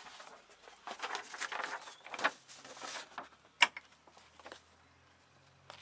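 Small objects being handled: scattered rustling and light knocks, with one sharp click about three and a half seconds in.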